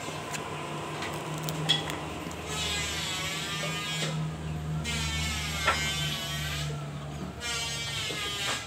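Maktec hand grinder fitted with 180-grit sandpaper, its motor running with a steady hum while the sandpaper is worked across teak wood in three passes, each heard as a rising hiss that lasts a second or two.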